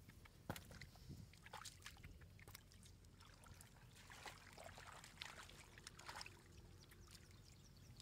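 Faint, scattered wet splashes and slaps in a shallow muddy puddle, as stranded fish thrash and bare hands grope through the mud; the sharpest slap comes about half a second in.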